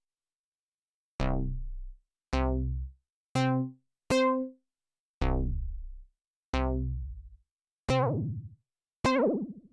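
Dave Smith Instruments Prophet 6 analog synthesizer played dry, one note at a time, on a short plucked-sounding preset: eight separate notes after about a second of silence, each starting sharply and going duller as it fades within about a second.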